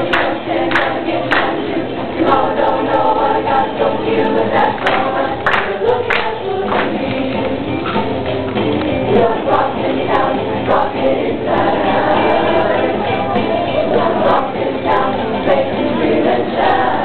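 Young mixed show choir singing a rock-and-roll number together over music accompaniment, with a few sharp handclaps in the first half.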